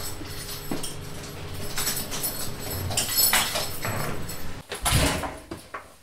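An apartment front door being unlocked and opened, with a string of sharp clicks and knocks, then the door shutting with a low thud about five seconds in.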